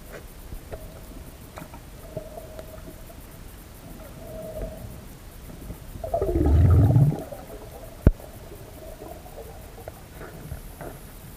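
Underwater sound picked up by a diving camera during a spearfishing dive: a faint steady hum and scattered small clicks, then about six seconds in a loud low rumble that falls in pitch and lasts about a second, followed by a single sharp click.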